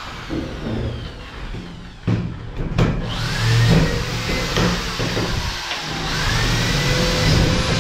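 Handheld power drill/driver running in short bursts to fasten fiber cement board to steel framing. Its motor whine rises and levels off twice, with a few sharp clicks near the start.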